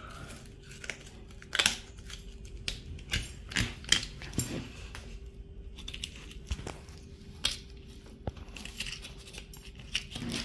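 Boning knife cutting and scraping around the leg bone and tendons of a raw lamb leg: short, irregular scrapes and clicks of the blade on bone and sinew as it is worked around the joint.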